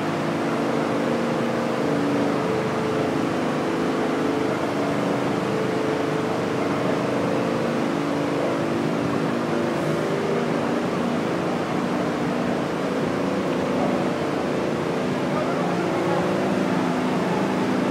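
Fire truck engines running at a fire scene: a steady, unbroken engine drone with street noise.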